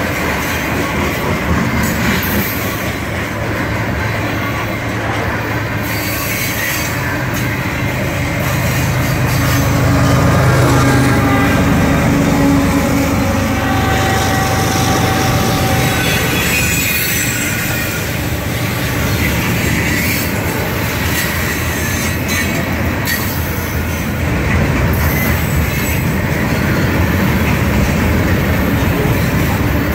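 Freight train rolling past at close range: the steady rumble and clatter of freight car wheels on the rails, with some wheel squeal. About ten seconds in, a mid-train diesel locomotive passes, and its engine drone swells for a few seconds, shifting in pitch as it goes by.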